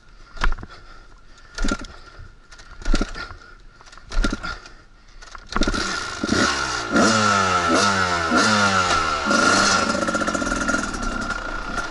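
Two-stroke dirt bike being kick-started: four kicks about a second apart, then the engine catches about five and a half seconds in, is revved a few times, and settles to a steady run.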